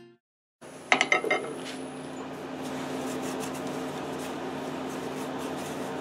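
After a half-second gap, a few sharp metallic clinks come about a second in, with a thin high whine that stops near two seconds. Then the Laguna Revo 1836 wood lathe gives a steady low hum.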